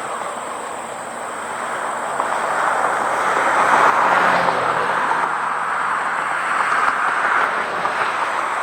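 Highway traffic: tyre and road noise on pavement, swelling as a vehicle passes about four seconds in.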